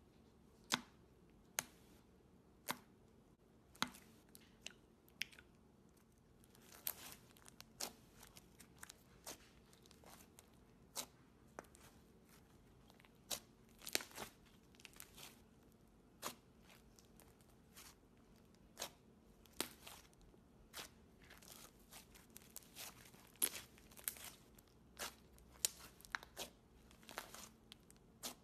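Thick, textured slime being squeezed, folded and pressed by hand, giving irregular sharp pops and crackles, a few at first and then coming thicker and faster about a quarter of the way in.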